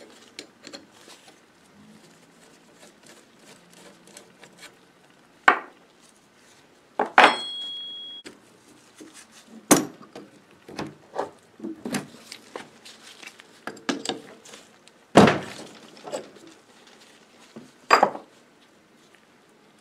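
Scattered metal clinks and knocks of hand tools and loose bolts being handled and set down on the floor while a Model A starter drive is unbolted. One clink about seven seconds in rings briefly.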